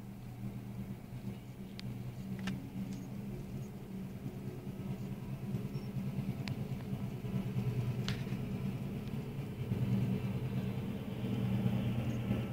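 WDG-3A diesel locomotive's 16-cylinder ALCO engine running with a steady low hum that grows louder as the train approaches. A few sharp clicks are scattered through the first two-thirds, and a hiss builds near the end.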